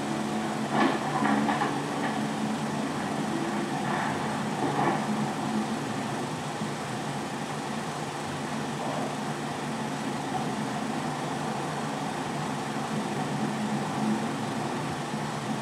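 A 16mm film projector running, with a steady mechanical hum and hiss. A few soft knocks fall in the first five seconds, and a held musical tone dies away after about three seconds.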